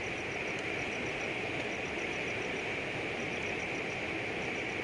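Steady rush of river water flowing. Short runs of faint, rapid high chirps repeat over it.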